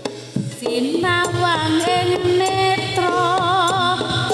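Live Javanese gamelan accompaniment for a jaranan dance: a few sharp hand-drum strokes, then from about a second in a long wavering, gliding melody line over evenly spaced struck-metal beats and a low steady drone.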